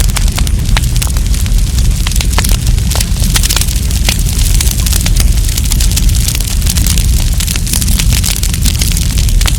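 Wood campfire crackling and popping, with many sharp snaps throughout over a steady low rumble.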